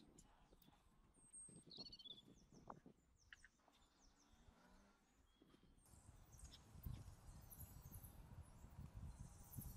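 Near silence with faint bird chirps. From about six seconds in comes a soft, gritty rustle of dark sand being rubbed through a mesh sieve by gloved hands.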